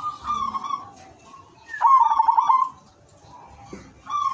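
Silver-coloured zebra dove (perkutut) cooing in its song: the tail of one phrase at the start, a full phrase about two seconds in that opens with a sharp rising note and runs into a quick string of pulsed coos, and the start of another phrase near the end.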